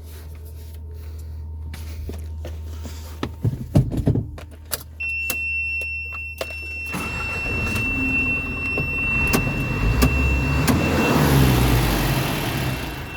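Isuzu Reward truck engine running with a steady low hum, then a few clicks and knocks. A steady high-pitched beep comes on about five seconds in and holds. From about seven seconds the engine noise builds up louder, peaking near the end.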